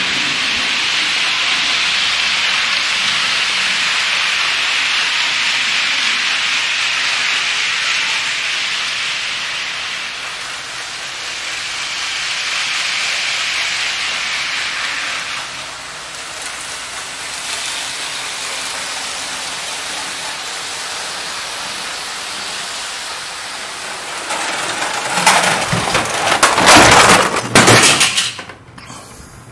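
Lima H0 TGV Duplex model train running on the layout track, a steady rolling hiss of wheels and motor. Near the end comes a few seconds of loud clattering knocks: the train derailing at speed and its cars crashing off the track.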